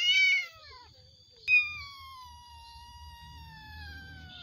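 Angora kitten meowing while held in a hand: a short call at the start, then about a second and a half in a sharp, long cry that slides steadily down in pitch, the kitten struggling against the grip.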